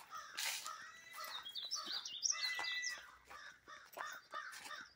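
Crows cawing over and over, a run of short calls that scold the hiker and dog passing through.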